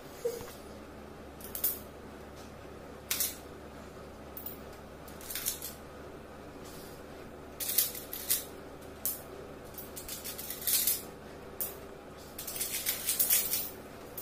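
Coins clinking against each other and on small stainless steel bowls as they are picked up and handled, in irregular light clicks with busier bursts about eight seconds in and again near the end.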